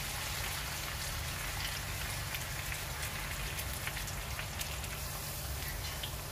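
Pork steaks sizzling and crackling steadily in a hot frying pan as all-purpose cream is poured over them.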